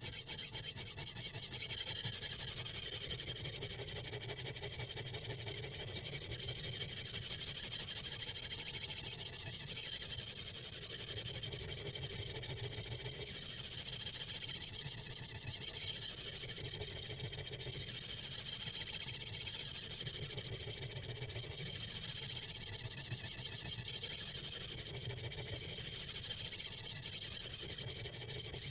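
Sharpening stone on a guided sharpener's rod scraping along a clamped steel kitchen-knife edge, a steady gritty scrape that swells and eases in repeated passes about every two seconds.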